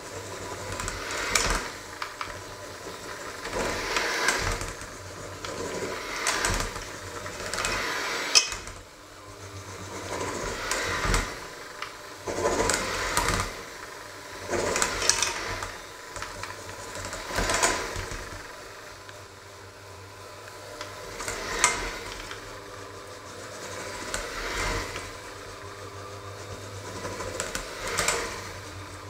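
Handheld electric mixer with dough hooks running steadily through stiff dough in a stainless steel bowl. It swells and eases every two to three seconds, with a couple of sharp knocks.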